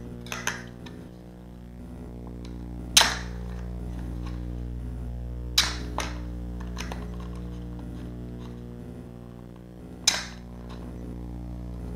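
Sharp plastic clicks and snaps as propellers are pressed onto the motors of a small racing quadcopter, a handful of separate clicks with the loudest about 3, 5.5 and 10 seconds in, over a steady low hum.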